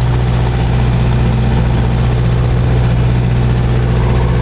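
Fast rescue boat's engine running steadily underway, a constant low hum, with the rush of water churned up in its wake.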